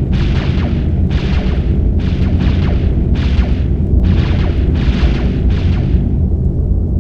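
Sci-fi space battle sound effect: a heavy continuous rumble under a rapid series of explosion-like blasts, about one every half to one second. The blasts stop about six seconds in, leaving the rumble.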